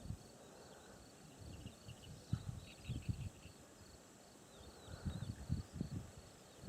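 Faint outdoor ambience: insects chirping steadily in a thin high pitch, with a few soft low thumps.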